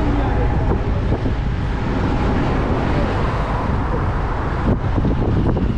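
Road traffic running steadily in the lane beside the walkway, with wind on the microphone adding a low rumble.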